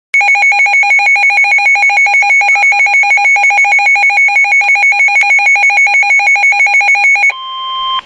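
Weather alert radio sounding its warning alarm: loud, shrill, rapid beeping at about eight beeps a second, signalling a received flood warning. About seven seconds in the beeping stops and a quieter steady single tone takes over.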